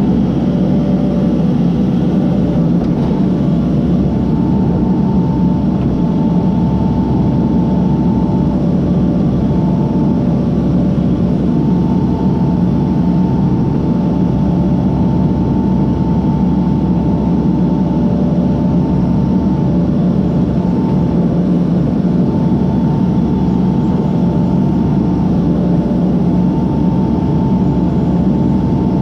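Case backhoe's diesel engine running steadily under load, with a thin high whine that comes and goes over the low rumble.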